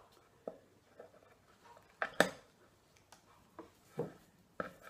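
Metal hand tool working upholstery staples out of a wooden chair seat board: scattered sharp metallic clicks and clinks, the loudest pair about two seconds in.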